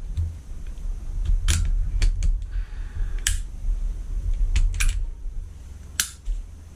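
Springfield Armory Hellcat pistol's slide being fitted back onto its frame: a series of about seven sharp metallic clicks and clacks spaced irregularly, over low handling rumble.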